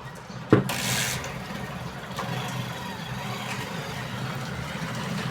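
A steady low mechanical hum, with one sharp knock about half a second in followed by a brief hiss.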